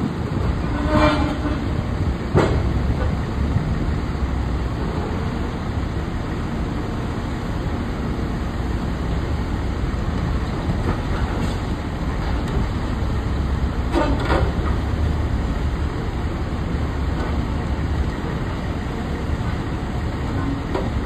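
Caterpillar high-reach demolition excavator's diesel engine running steadily under load, with a few short sharp cracks and clanks as its attachment breaks up the building's concrete, about a second in, two and a half seconds in and again near the middle.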